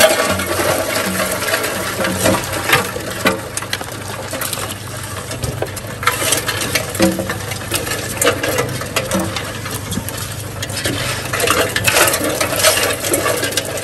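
Live crawfish being shaken out of a trap and raked by gloved hands across a metal sorting table: a dense, continuous clatter and rattle of shells and claws on metal, with louder flurries now and then.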